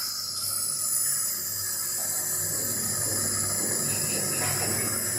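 Compressor nebulizer running: a steady machine hum with a continuous hiss of air and mist.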